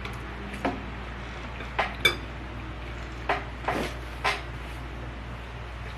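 Eating utensils clinking and tapping against dishware, about six short knocks spread over a few seconds, the loudest about two seconds in with a brief ring. A steady low hum lies beneath.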